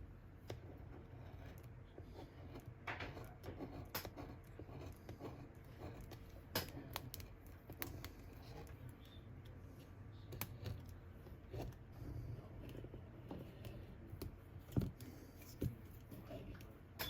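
Faint, irregular clicks and scrapes of a sharp screwdriver tip picking old display adhesive off an iPhone XS Max's frame, over a faint low hum.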